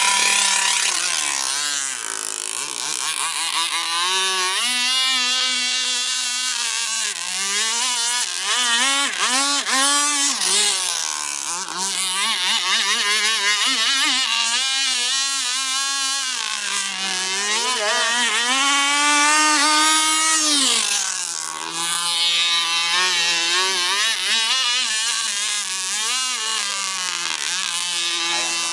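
A small boat's engine running, its speed rising and falling again and again with a fairly high-pitched note.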